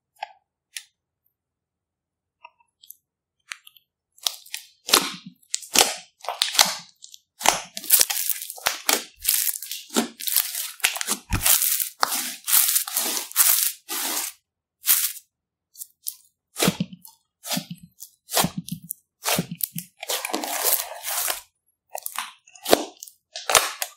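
Glitter slime being folded and pressed by hand, giving irregular bursts of wet crackling and popping. A few faint clicks at first, then nearly continuous squishing from about four seconds in.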